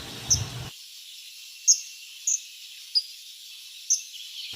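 Vernal hanging parrot giving short, high-pitched chirps, five scattered over a few seconds, over a faint steady high hiss.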